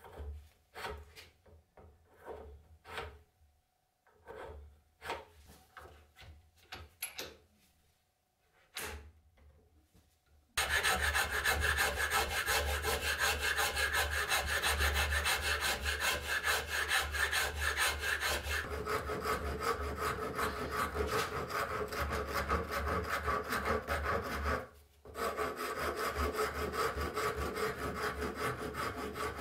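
A round rasp scraping inside a hole in a wooden block, in separate strokes about once a second. About ten seconds in, a hacksaw starts cutting the wood block held in a vise, with loud, fast, continuous strokes. After a short pause near the end, a file rasps the end of the wooden block.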